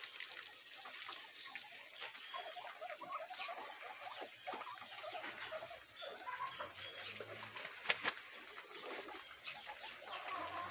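Faint clucking of chickens, with a single sharp click about eight seconds in.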